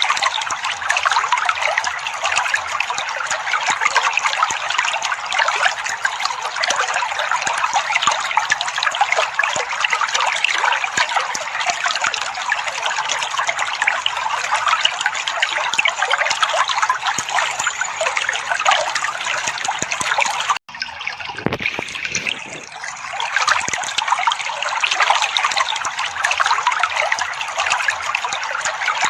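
Trickling, splashing water running steadily, meant as soothing water sound for songbirds that have stopped singing. It cuts out abruptly about two-thirds through and comes back a second or two later.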